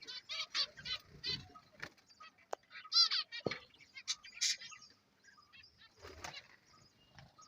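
Caged budgerigars and finches chirping in many short, quick calls, with a few clicks and soft knocks among them.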